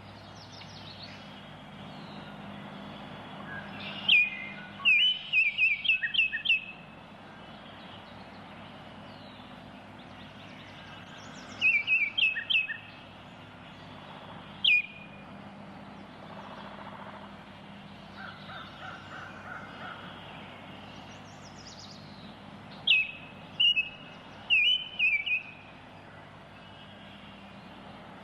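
Baltimore oriole calling: bursts of short, clipped notes, each sliding down in pitch, given in quick runs of several at a time and repeated in four bouts.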